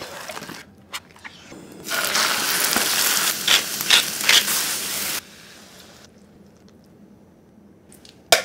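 Two wooden pepper mills grinding together, a gritty ratcheting rasp with a few louder crunches for about three seconds, starting about two seconds in and cutting off suddenly.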